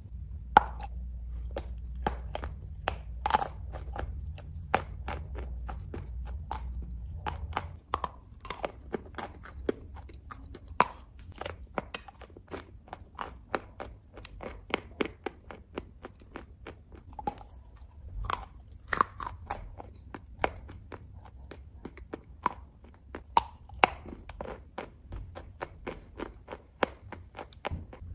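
Close-up crunching and chewing of chalk chunks coated in clay paste: a dense run of sharp, crisp cracks, several a second, with a low hum underneath that stops about eight seconds in.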